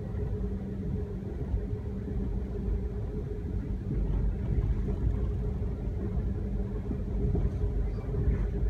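Steady low rumble of a moving passenger train heard from inside the car, with a constant hum running under it.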